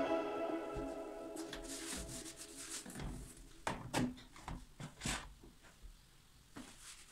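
Plastic bottles and a cloth handled and set into a plastic caddy basket: a few light knocks and rubbing sounds, clustered near the middle. Background music fades out over the first two seconds.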